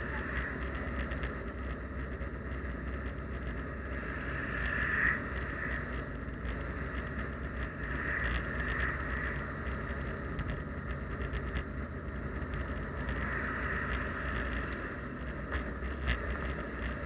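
Car driving at road speed, heard from inside the cabin: a steady low engine and tyre rumble.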